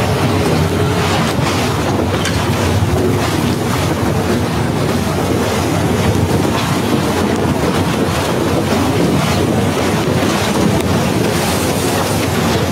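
Snowstorm wind blowing hard across a phone's microphone: a loud, steady rush with a heavy low rumble.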